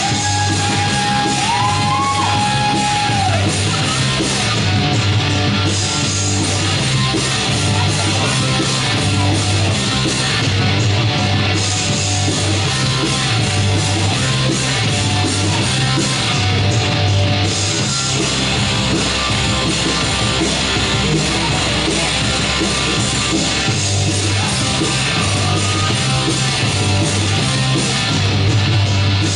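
Rock music with guitar over a repeating bass line, with a long held high note near the start.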